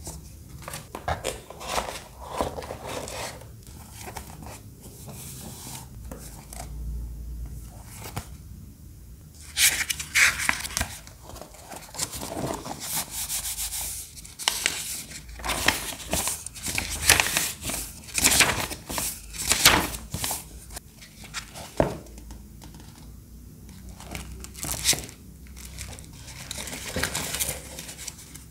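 Paper and card rustling and crinkling in irregular bursts as hands handle a printed poster, turn the pages of a glossy magazine and shuffle card bookmarks. The rustling is loudest in the middle stretch.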